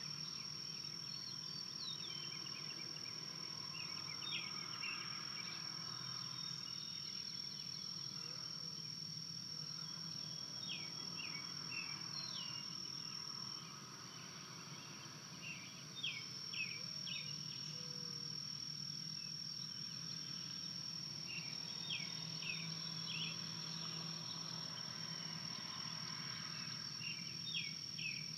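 A steady, high-pitched insect trill. It drops out for a couple of seconds about halfway through. Small clusters of short, high bird chirps are scattered over it.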